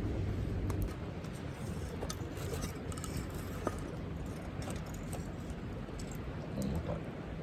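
A river murmuring steadily, with a campfire crackling in light, scattered pops and snaps over it.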